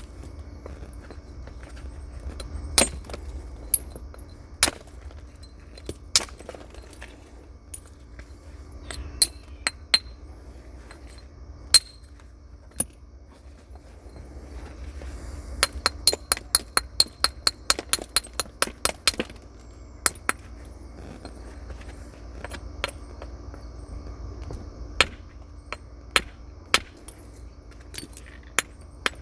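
Flint being knapped into a biface with natural tools: sharp, clinking strikes every second or two. In the middle comes a quick run of about fifteen light taps.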